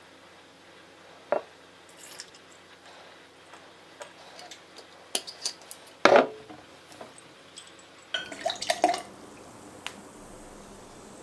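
Whiskey poured from a bottle over ice cubes in a glass: scattered clinks and ticks of ice against glass. The loudest clink comes about six seconds in, and a quick run of clinks follows around eight to nine seconds.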